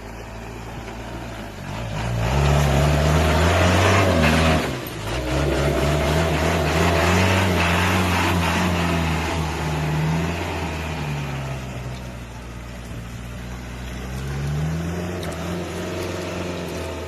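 Off-road vehicle engine revving hard under load. It climbs about two seconds in, dips briefly near five seconds, runs high again, eases off, and revs up once more near the end.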